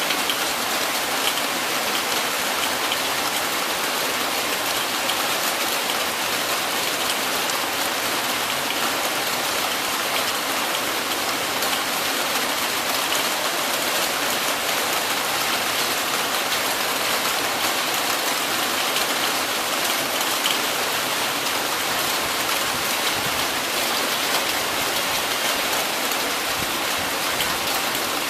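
Heavy rain falling steadily, a dense even hiss of drops without letup.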